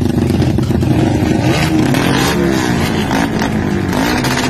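Drag-race motorcycles with open racing exhausts being revved hard, several engines at once, their pitch rising and falling again and again as the throttles are blipped.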